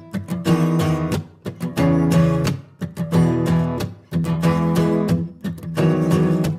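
Background music: an acoustic guitar strumming chords in short bursts with brief breaks between them.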